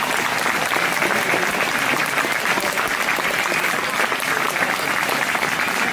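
Crowd applauding steadily, with some voices among the clapping.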